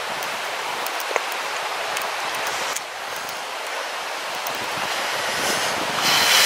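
Steady rush of a shallow, rocky river pouring over boulders, with a brief louder burst of hiss near the end.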